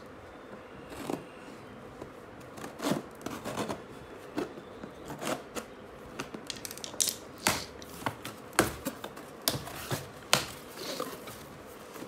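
Scissors snipping through packing tape along the seam of a cardboard box, then the cardboard flaps being pulled open. A run of short snips, clicks and cardboard scrapes, coming thicker in the second half.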